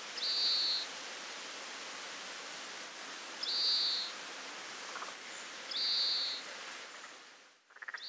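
Oriental greenfinch giving its buzzy, drawn-out 'beeen' call three times, a few seconds apart, over a steady hiss of outdoor background noise.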